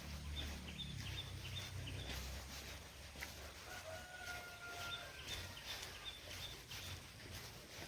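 Outdoor ambience with birds: short high chirps repeating in quick runs, and a longer held call about four seconds in. There is a low rumble during the first couple of seconds.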